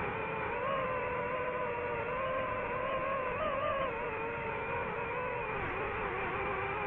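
DJI FPV drone's motors and propellers whining steadily in flight. The pitch wavers slightly up and down as the throttle changes.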